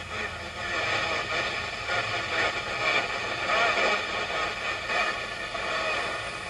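Midland 5001z CB radio receiving on channel 24: a continuous hiss of static with faint, garbled voices coming through it.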